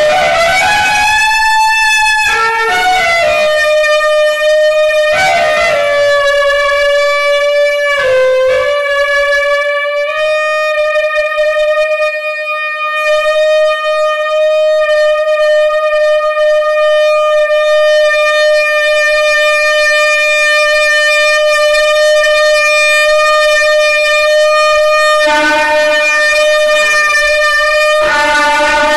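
Solo saxophone playing a few sliding, bending notes, then holding one long note for about fifteen seconds. A lower tone joins in near the end.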